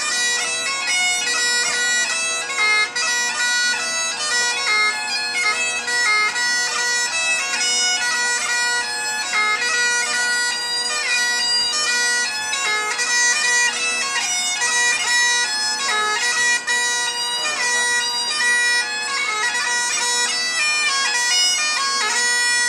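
Great Highland bagpipe played solo: steady drones sound under a tune on the chanter, accompanying Highland dancing.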